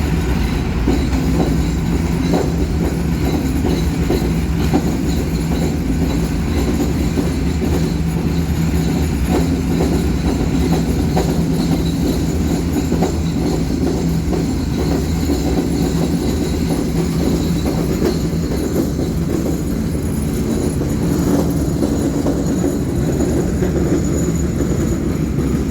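4R Raymond-type roller grinding mill running under load: a loud, steady heavy rumble and hum with scattered small knocks and rattles of material being ground.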